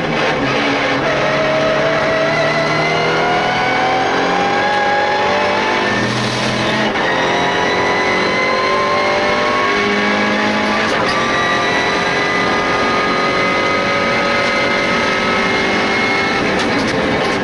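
MINI Challenge race car's engine heard from inside the cockpit, running hard at full throttle with its note climbing steadily in pitch. The note briefly breaks about six and eleven seconds in.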